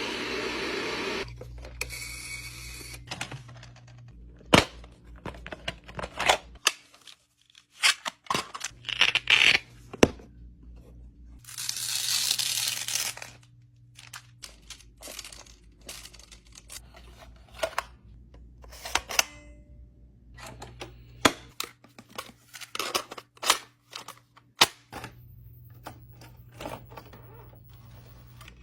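A series of sharp mechanical clicks and clunks at uneven intervals, with two short bursts of hiss, one at the start and one about twelve seconds in, over a low steady hum that comes and goes.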